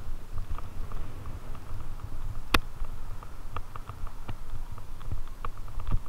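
Fatbike riding over a bumpy grass trail: a steady low rumble with irregular knocks and rattles from the bike and camera, and one sharp click about two and a half seconds in.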